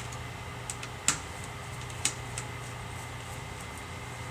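Small metal clicks and ticks of a magnetic-tip screwdriver backing out the screws that hold a netbook's LED screen panel: a few short sharp ticks, the loudest about a second in, over a steady low hum.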